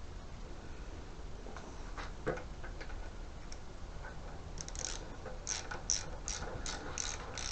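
Scattered light clicks of parts being handled, then from about halfway in a regular run of sharp clicks, two or three a second, from a ratchet spanner turning in a bolt.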